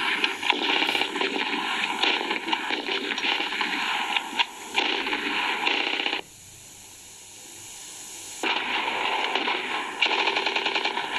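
Rapid gunfire from a war film's soundtrack, a dense stream of shots like machine-gun fire, thin and lacking low end as heard through a screen's speaker. The firing breaks off for about two seconds after the middle, leaving only a hiss, then resumes.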